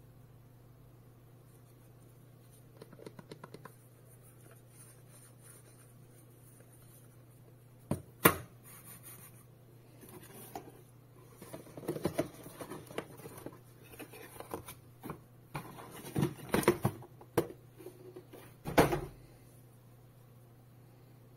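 Handling noises from unboxing a monitor light bar and its remote: scraping and rustling of the box and parts, with a sharp knock about eight seconds in and a thump near the end, over a low steady hum.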